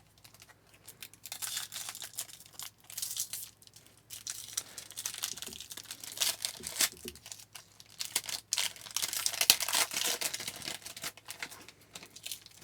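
Crinkling and tearing of a trading-card pack's wrapper, crackling in uneven spells with sharp clicks, loudest about a second in and again past the middle.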